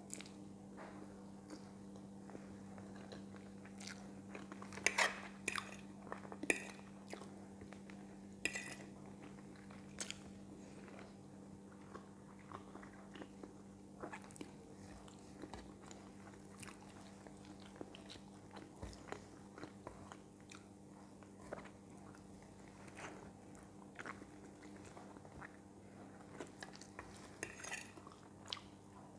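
Faint close-up eating sounds: a person chewing a mouthful of stir-fried noodles and chicken, with scattered short clicks of a fork against a plate, over a steady low hum.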